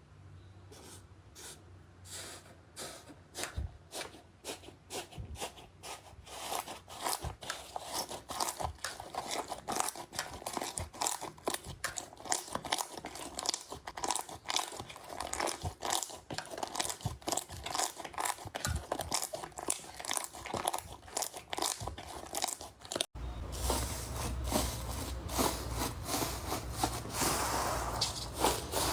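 Crunchy slime being squeezed and worked by hand, giving dense crackling crunches that grow thicker as it goes. About 23 s in it cuts to another slime clip, with a low rumble under the crackling.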